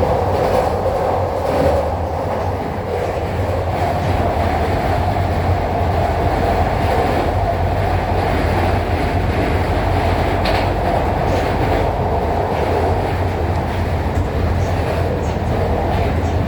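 Metro train running at speed, heard from inside the car: a steady rumble with a constant low hum and rail noise, and one faint click about ten seconds in. The train is a Guangzhou Metro Line 5 linear-motor, third-rail train.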